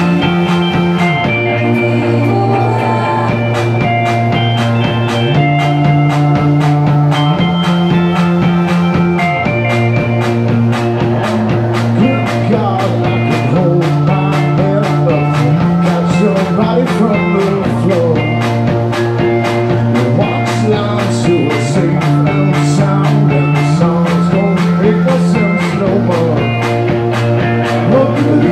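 Rock band playing live: electric guitars, electric bass and drum kit, with a steady beat and a bass line that repeats every few seconds.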